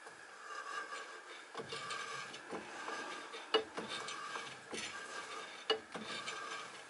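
A homemade keyway-cutting tool, ground from a broken twist drill, being stroked by hand through the bore of a brass flywheel on a lathe, scraping the metal on each stroke about once a second. Two sharper clicks come about halfway through and near the end.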